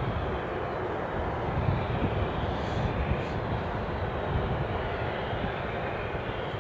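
Airbus A330-300 freighter's jet engines running at low taxi power, a steady distant rushing hum with no distinct events.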